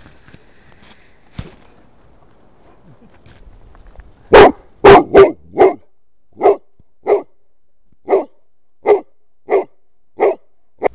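Bernese Mountain Dog barking at a snake: a quick run of four loud barks about four seconds in, then single barks every half second to a second, about eleven in all.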